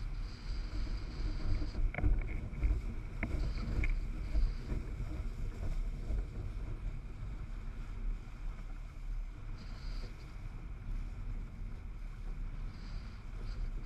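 Wind buffeting the microphone of an action camera mounted on a windsurfer's boom, over a steady rush of water along the board as it sails. A few sharper slaps of water come between about two and four seconds in.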